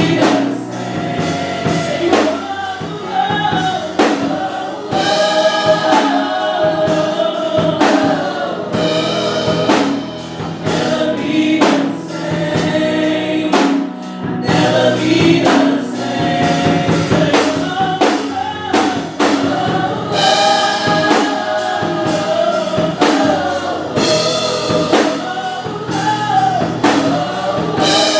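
Gospel choir singing with a drum kit keeping a steady beat.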